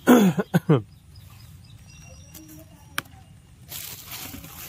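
Three short voiced cries falling in pitch, in quick succession within the first second. A single sharp click follows about three seconds in, then a brief rustle near the end.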